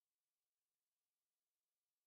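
Silence: the audio track is essentially empty, with no audible sound.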